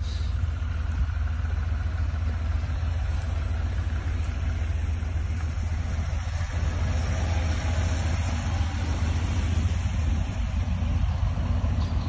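Jeep Wrangler engines running at low speed as the Jeeps crawl past close by on a dirt trail, a steady low rumble.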